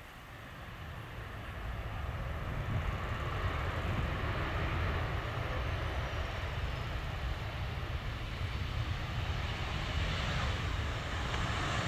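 Jet engine roar of a Boeing 737-800 on its landing rollout, with its CFM56-7B turbofans and a deep rumble underneath. The roar swells over the first two seconds or so, then holds steady, with a faint falling whine partway through.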